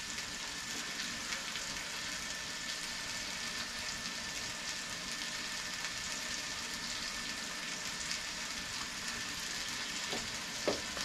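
Ham, onions and peppers frying in skillets: a steady sizzle, with a couple of faint clicks near the end.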